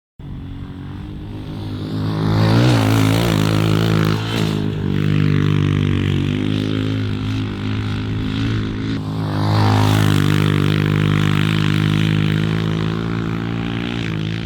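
Honda CRF110F pit bike's 110cc four-stroke single running under throttle, revving up about two seconds in and again near ten seconds, easing off between.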